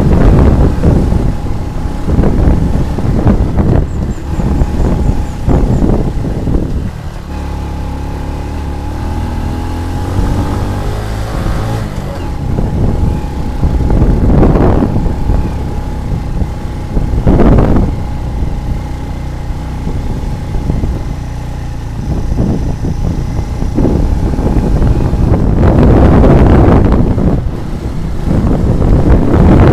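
Motor scooter engine running as it rides along, with wind buffeting the microphone. The wind eases for several seconds in the middle, letting the engine's steady hum come through, and loud gusts return near the end.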